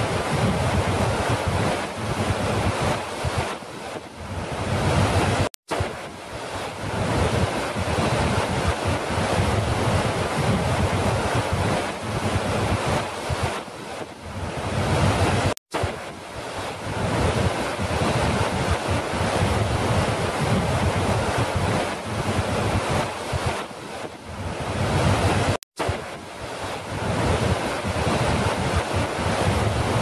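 Large waterfall's steady roar of rushing, crashing water. The sound cuts out for an instant three times, about ten seconds apart.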